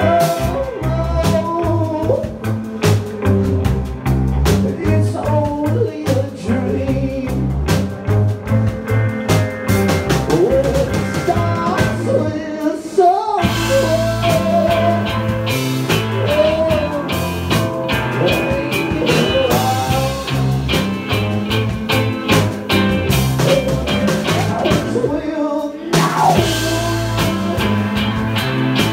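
Live rock band playing: electric guitar, bass guitar and drum kit, with a male lead vocal singing over them. The band briefly drops out twice, about halfway through and near the end.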